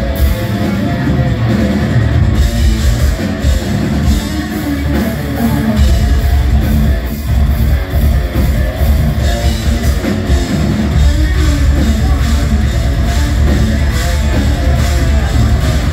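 Technical death metal band playing live: heavily distorted electric guitars, bass and drum kit in a loud, dense, continuous mix with a heavy low end.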